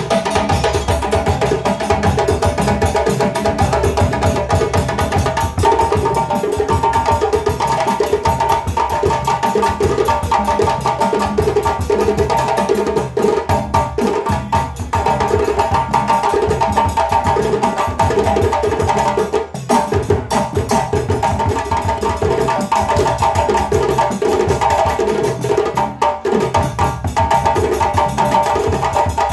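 A group of djembe drums played with bare hands, a fast, dense, steady rhythm of sharp slaps and lower open strokes.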